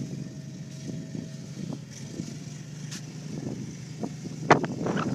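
Amphibious boat's engine running steadily as it moves through the shallows towards the beach, with one sharp, loud click about four and a half seconds in.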